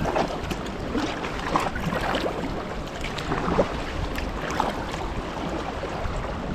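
Paddle strokes from a sea kayak moving through calm sea water: irregular small splashes and drips, over a low rumble of wind on the microphone.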